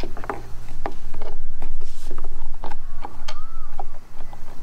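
Irregular clicks, taps and light knocks as a kayak motor mounting plate and its screws are handled and set in place on the kayak's stern, over a steady low hum.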